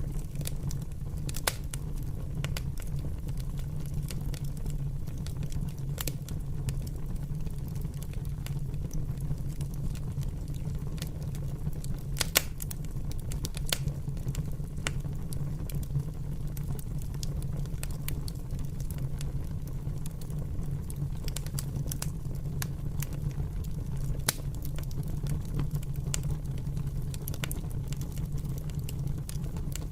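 Fire crackling: irregular sharp crackles and a few louder pops over a steady low rumble.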